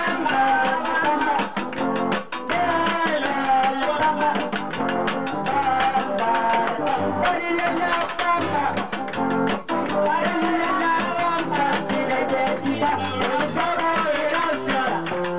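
Upbeat Latin dance music with guitar and a steady beat.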